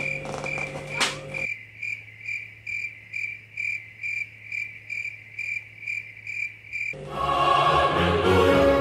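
Crickets-chirping sound effect: a steady run of short, evenly spaced chirps, about two and a half a second, the comic cue for an awkward silence. About seven seconds in, choral, opera-like music comes in and takes over.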